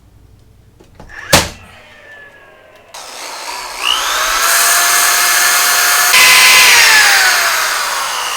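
Electric power tool motor starting up with a rising whine, running loudly for about three seconds, then winding down with a falling pitch after switch-off. A single sharp knock comes about a second before it starts.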